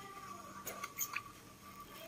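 Baby monkey sucking milk from a bottle: short wet sucking clicks and smacks, several close together about a second in.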